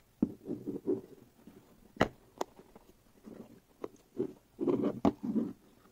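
Hands handling a clear plastic storage box: its snap latches click open with several sharp clicks, with the plastic rubbing and rustling in between.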